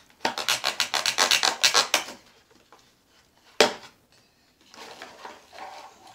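A knife sawing rapidly back and forth at the packaging that holds a toy RC truck in its cardboard box, about eight strokes a second for roughly two seconds. A single sharp click comes about three and a half seconds in, followed by quieter scraping.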